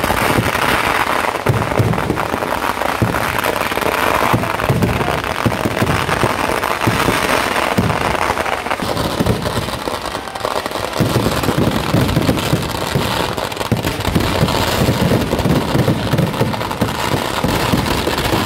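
Kerala temple-festival fireworks (vedikkettu) going off in a continuous barrage: dense rapid crackling of firecrackers mixed with many overlapping heavy booms from aerial shells, with no break.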